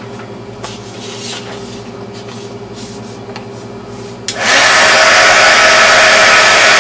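Craft embossing heat gun being picked up with a few light handling clicks, then switched on about four seconds in. Its fan starts abruptly into a loud, steady rush of hot air, blowing over the embossing powder on the clay to melt it.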